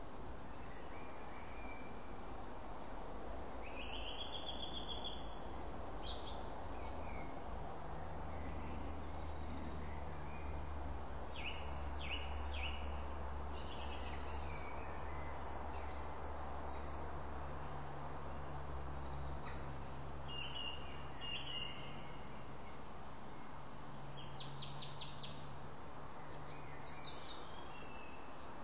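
Small birds calling in short scattered chirps and trills over a steady outdoor hiss. A low steady hum comes in several seconds in and fades near the end.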